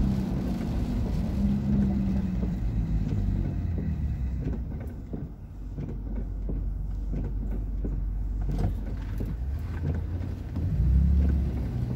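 Car cabin sound on a wet road: a steady low engine and road rumble, with scattered light taps from about four seconds in. The rumble dips briefly mid-way and swells near the end.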